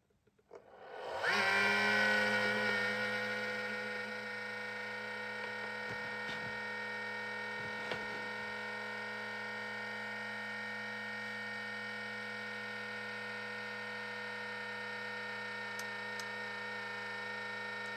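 About a second in, an RGBW LED moving head powers up and its pan and tilt stepper motors start with a whine of several tones that glides briefly. The whine then settles into a steady, slightly quieter hum as the head turns through its start-up movement, a sign that the repaired fixture is working.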